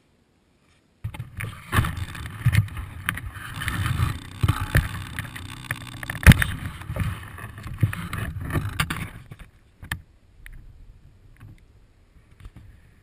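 Handling noise from a GoPro on a small RC plane being picked up out of wet grass. Grass brushes and rustles against the camera, and there are irregular knocks and bumps. The noise starts suddenly about a second in, one sharp knock stands out partway through, and after about nine seconds only a few faint ticks remain.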